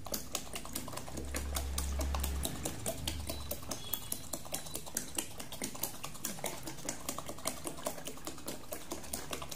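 Water being poured from a plastic bottle onto rockwool cubes in a plastic tray, with rapid, irregular clicking, several clicks a second.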